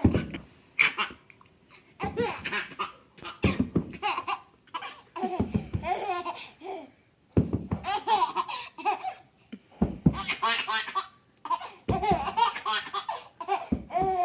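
A baby laughing hysterically in repeated belly-laugh bouts, about one every second and a half to two seconds. Each bout starts with a thump on the floor.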